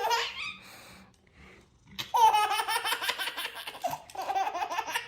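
A baby laughing in bursts: a short laugh at the start, a pause, then a long run of giggling laughter from about two seconds in and another burst near the end.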